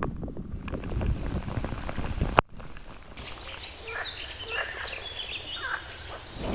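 Wind buffeting the microphone with a low rumble, then after a sudden cut about two and a half seconds in, a quieter stretch of birds chirping and calling.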